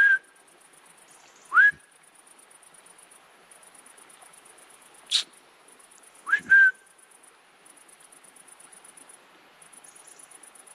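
Roe deer giving short whistled calls, each a quick upward sweep held briefly, singly or in pairs, at the start, near two seconds and twice around six and a half seconds. A steady high chirring of crickets runs underneath, with one sharp click about five seconds in.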